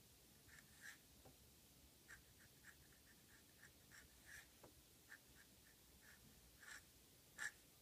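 Faint scratching of a modified Namiki Falcon fountain pen's flexible nib on paper, in short irregular strokes as cursive script is written. The loudest stroke comes near the end.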